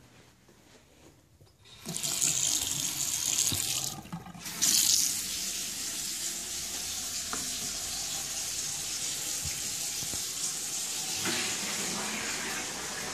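A bathroom tap turned on about two seconds in, running water steadily into the basin, with a short break around four seconds; the fixtures are being run to test a drain line that has not been draining.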